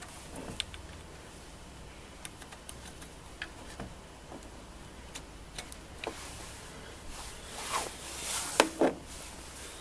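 Small plastic clicks and handling noises from an orange PY21W indicator bulb being fitted into its yellow plastic bayonet bulb holder, with two louder clicks close together near the end.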